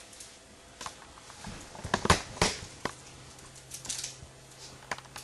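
Light handling sounds of shoelaces being crossed and pulled on a sneaker: scattered soft rustles and clicks, the sharpest few coming about two to three seconds in.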